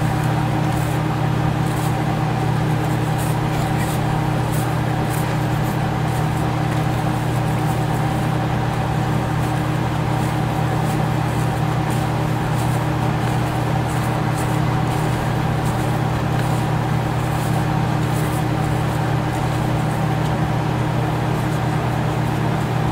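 Steady low machine hum with a few fixed tones, and over it faint, irregular scratchy ticks of a wire whisk stirring a dry powder mix in a plastic tub.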